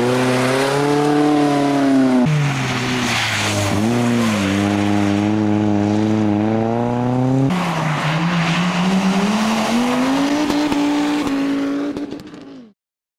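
Renault Clio rally car driving hard past and away, its engine note rising and dipping several times as the revs change, over the hiss of tyres on wet tarmac. The sound cuts off suddenly near the end.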